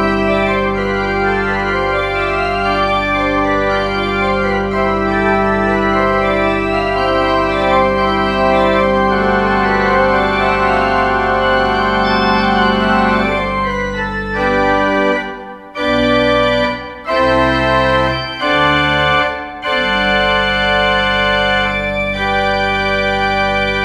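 Organ music: full held chords over a steady low pedal note, broken into a few short detached chords with brief gaps about fifteen seconds in, then held chords again.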